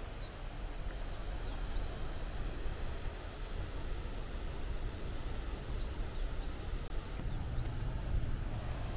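Small birds chirping in quick, repeated short notes, over a steady low rumble.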